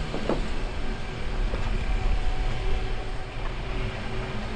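Steady, low rumbling background noise with a faint hum in it, without distinct knocks or strokes.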